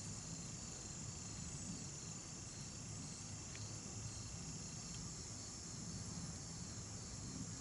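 Steady, high-pitched insect chorus, with a faint low rumble beneath it.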